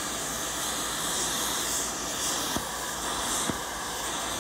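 Hypertherm Powermax85 plasma cutter with a replacement hand torch cutting through the steel plate of an excavator bucket: a steady, even hiss of the plasma arc and air jet, with a few faint pops.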